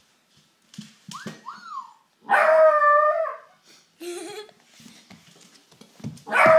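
Beagle puppy whining and howling in separate calls. There is a short rising-and-falling whine about a second in, then a loud howl lasting about a second, a brief cry at about four seconds, and another loud howl starting near the end.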